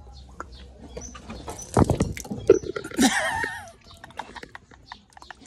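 Small bottles of Yakult being gulped down in a quick drinking race, one of them spiked with vinegar. About two seconds in comes a heavy knock, then a short wavering, strained vocal cry from a drinker.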